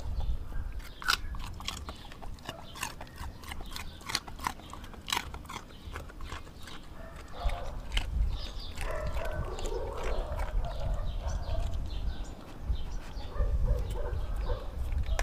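Doberman eating raw chicken and organ meat from a stainless steel bowl: a quick run of sharp crunches and clicks in the first half, then softer, wetter chewing and lapping.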